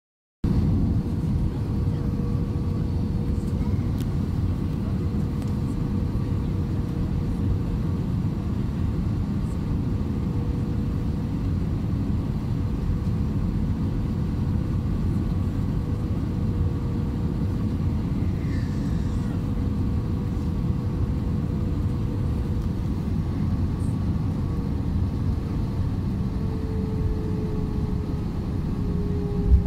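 Airbus A320 cabin noise on final approach: a steady rumble of engines and airflow with a thin steady whine that slides down in pitch over the last few seconds as thrust is reduced, ending in a sudden thump as the wheels touch the runway.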